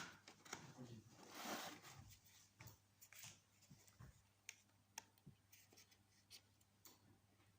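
Near silence: faint scattered clicks and taps, with a brief soft rustle about a second and a half in.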